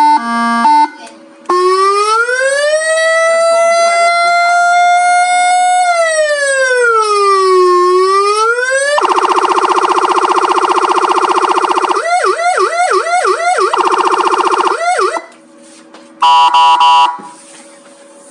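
Electronic vehicle siren played through a 12 V 200 W horn speaker, stepping through its tones. A short stepped tone opens it, then a slow wail rises, falls and rises again. About halfway it switches to a buzzing horn tone, then to a fast yelp, and near the end a brief stepped beep plays.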